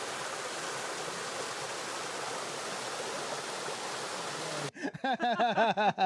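Small rainforest stream splashing over mossy rocks, a steady rushing of water. About four and a half seconds in it cuts off and a woman laughs heartily in quick, repeated bursts, louder than the water.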